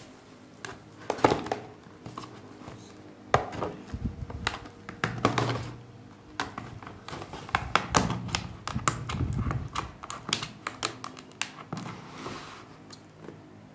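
Scissors cutting into a stiff clear plastic blister pack, with irregular snips and crackles of the plastic as it is cut and handled, and a few dull knocks.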